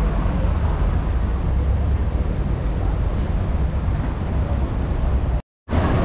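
Steady low rumble of a moving vehicle, heard from inside. It cuts out completely for a moment near the end.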